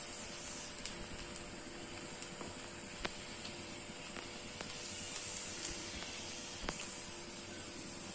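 Black-eyed bean vadas deep-frying in hot oil: a steady sizzle with a few sharp crackles now and then.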